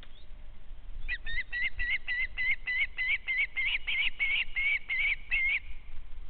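A bird calling: a fast run of repeated, evenly spaced notes, about four a second. It starts about a second in and stops abruptly after about four and a half seconds.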